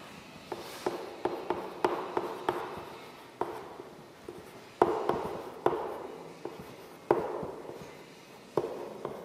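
Writing on a classroom board: irregular sharp taps of the strokes, about one or two a second, each ringing briefly in the room, with light scraping between.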